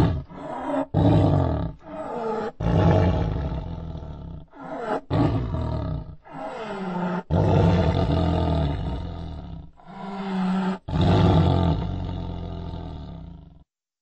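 Designed Carcharodontosaurus saharicus dinosaur roar sound effect: a series of low roars, several falling in pitch, broken by abrupt short cuts.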